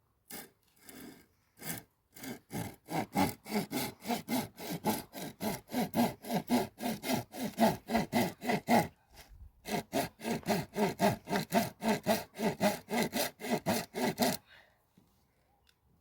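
Hand saw cutting through wood: a few starting strokes, then a steady back-and-forth at about three to four strokes a second. It pauses briefly about nine seconds in and stops about fourteen seconds in.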